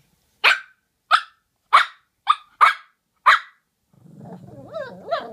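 Two Shih Tzus barking and grumbling at each other: six short, sharp barks over the first three and a half seconds, then from about four seconds a drawn-out, growly, warbling grumble that slides up and down in pitch.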